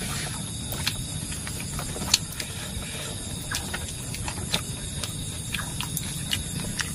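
People eating by hand from banana leaves: scattered small clicks and smacks of chewing and of fingers picking at rice and fish, over a steady background hiss.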